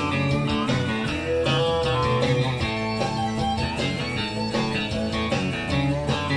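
Instrumental intro of a country-style song: guitar over a steady beat.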